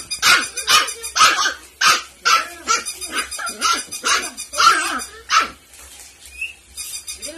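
Puppy barking in a run of about ten short, high-pitched yaps, about two a second, stopping about five and a half seconds in.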